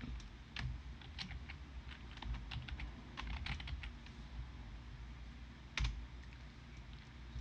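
Computer keyboard keys pressed at an irregular pace: a scatter of light clicks, with one louder click about six seconds in.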